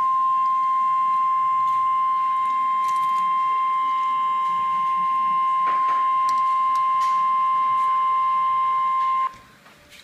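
NOAA Weather Radio's 1050 Hz warning alarm tone: one loud, steady high-pitched tone that cuts off about a second before the end. It signals that a warning is about to be broadcast.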